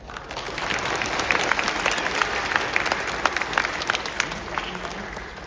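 Audience applauding in a large hall, many hands clapping at once. It swells at the start and slowly dies away toward the end.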